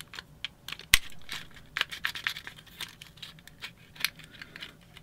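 Irregular small clicks and scrapes of hard plastic parts and a metal screwdriver as a plug-in timer's circuit board assembly is prised out of its plastic case, with one sharp, louder click about a second in.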